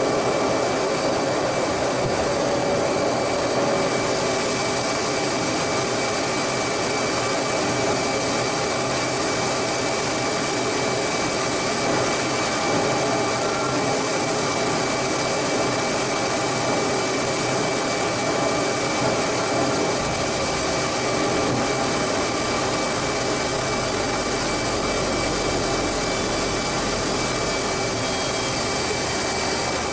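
F-18 cockpit noise: a steady rush of jet engine and airflow with a few held whining tones, as the jet comes in to land. A low rumble joins about two-thirds of the way through, as the wheels roll on the runway.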